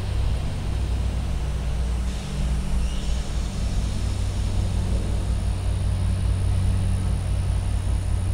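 Diesel engine of an approaching CSX freight locomotive running, a steady low drone.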